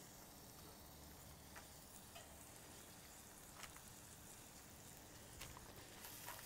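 Faint sizzle of ground-beef burger balls frying on a hot, oiled flat-top griddle, with a few small ticks.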